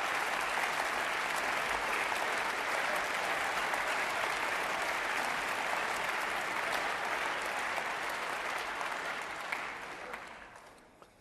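Audience applauding with steady clapping that dies away over the last two seconds.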